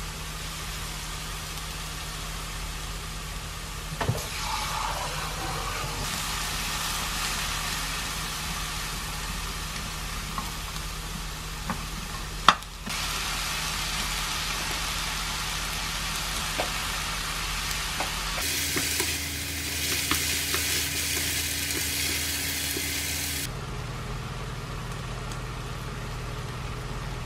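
Squid, bean sprouts and onion sizzling as they are stir-fried in a frying pan over a high gas flame, which drives off the water they release. The sizzle swells about four seconds in and comes and goes in strength, over a steady low hum. A single sharp knock about twelve seconds in.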